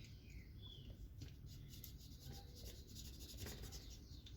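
Faint rubbing and light scratching of hands working a protective piece off a blender motor, with a few small ticks.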